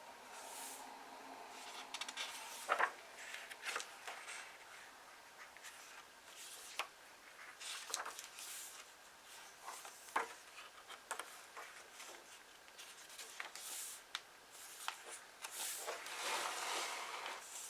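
Pages of old books being turned and handled: crisp paper rustles and light taps, with a longer rustle near the end.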